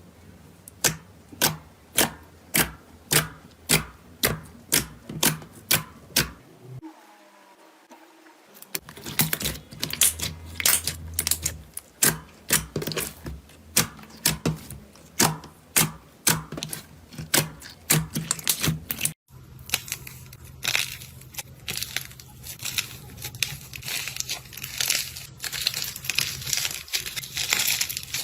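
Slime being squeezed and pressed by hand, making sharp sticky clicks and pops about twice a second. After a short lull the clicks come thicker, and later they turn into dense, continuous crackling.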